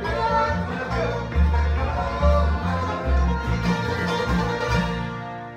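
Bluegrass band playing a fast tune on banjo, upright bass, mandolin and acoustic guitar, with a steady plucked bass line. About five seconds in the playing stops on a final chord that rings on and fades.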